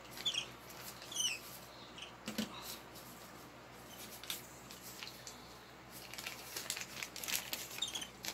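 Dry-erase marker writing on a whiteboard: short scratchy strokes with a few brief high squeaks, the strokes coming thicker near the end.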